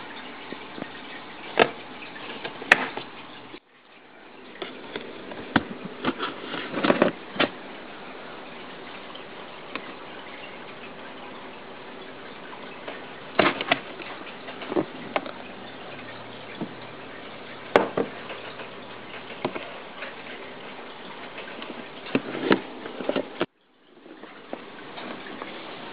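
Scattered clicks and knocks from handling a plastic snake tub and its lid, over a steady hiss. The sound cuts out briefly twice.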